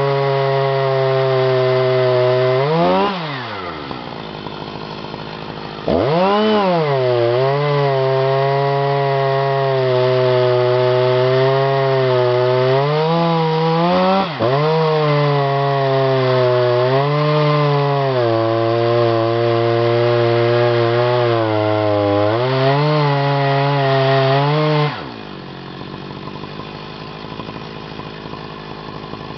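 Two-stroke chainsaw in an Alaska chainsaw mill ripping a Scots pine log lengthwise, running at high revs under load with its pitch wavering as the cut bogs and recovers. About three seconds in the pitch falls sharply and the saw drops back for a few seconds before revving up again; near the end it falls away to a much quieter, lower running.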